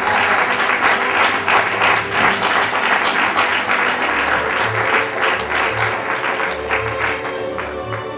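Live audience applauding, with music and a low beat playing under it; the clapping thins out near the end.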